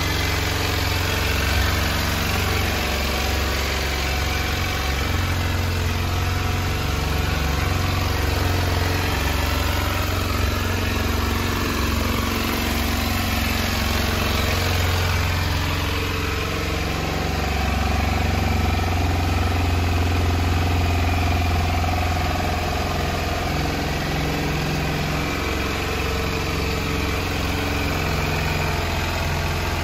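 Kawasaki Ninja 125's single-cylinder four-stroke engine idling steadily.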